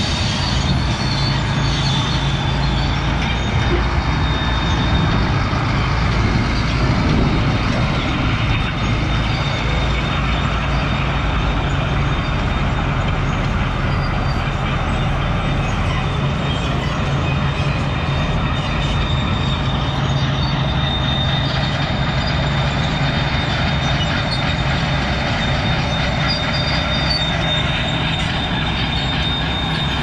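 A vehicle running steadily along a road: continuous engine and road rumble with a constant thin high whine.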